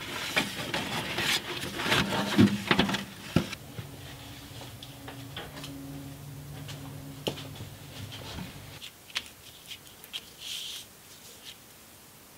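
Stiff paper template rustling and crinkling as it is handled and pressed into place, with many light clicks and taps, busiest in the first few seconds. A low steady hum runs from about four seconds in and stops near nine seconds, followed by a few scattered ticks.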